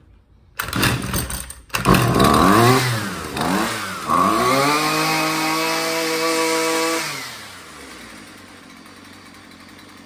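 Husqvarna string trimmer's two-stroke engine pull-started, catching about a second and a half in, revved up and down twice, held at high revs for about three seconds, then dropping to a steady idle. It starts and runs after its carburetor and fuel lines were replaced.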